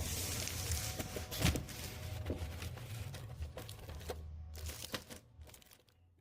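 Plastic packaging crinkling and rustling as it is handled, with scattered sharp crackles, over a steady low hum; it dies down near the end.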